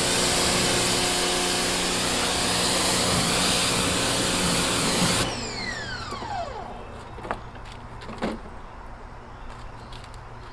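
Pressure washer running and spraying with a steady hiss and hum, then stopping suddenly about halfway through; its motor winds down with a falling whine. Two sharp clicks follow, about a second apart.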